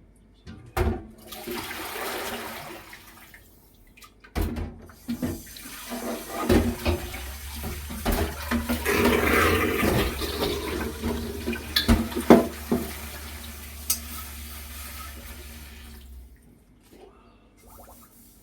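Water running from a kitchen tap into a sink while dishes and a pot are rinsed by hand, with several sharp knocks and clinks of the dishes; the water is turned off near the end.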